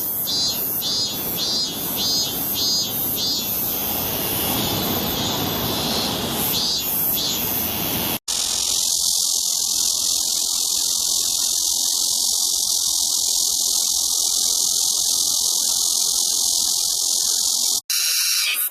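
Cicadas singing, two different kinds of song: first a pulsing call repeated about twice a second over background noise, then, after an abrupt cut about eight seconds in, a steady unbroken high-pitched buzz for about ten seconds.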